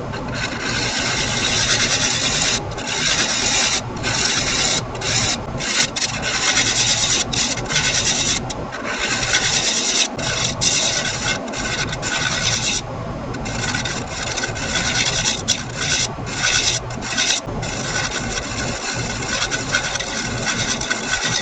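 Turning tool cutting a spinning oak-and-veneer lid blank on a wood lathe, a steady rasping hiss that breaks off for a moment many times as the tool is lifted from the wood and set back in.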